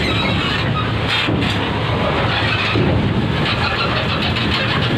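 Heavy logistics truck's diesel engine running steadily as the truck drives up the steel loading ramp onto a ferry, a continuous loud low rumble.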